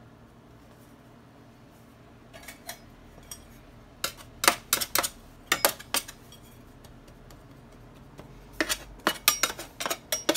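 Metal sheet pan clattering and knocking under hands pinching and pressing a dough roll on it: a few sharp knocks about four to six seconds in, then a quicker cluster near the end.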